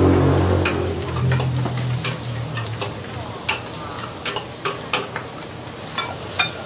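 Food sizzling in a hot wok while being stir-fried, with a metal spatula or ladle clicking and scraping against the pan about a dozen times.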